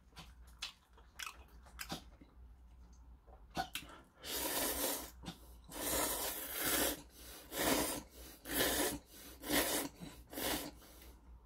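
Ramen noodles from a kimchi stew being slurped through the lips, in about six loud, drawn-in slurps one after another from about four seconds in. Before them come a few soft clicks of chewing.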